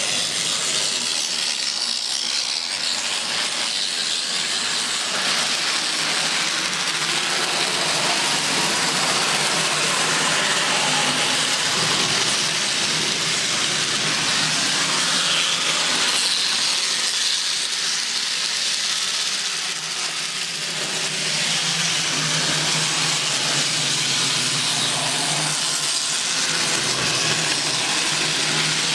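N-scale model train running on its track: a steady whirring hiss from its small electric motor and wheels, with a faint low hum that grows in the second half.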